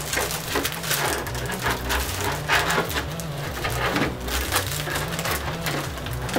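Thin clear protective film being peeled off a painted Lexan RC car body, the plastic crinkling and crackling irregularly throughout, over a background music bass line.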